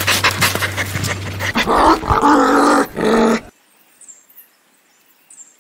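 Dog panting in quick rapid breaths, then a couple of short, low growl-like dog vocalisations about two seconds in, cut off abruptly halfway through.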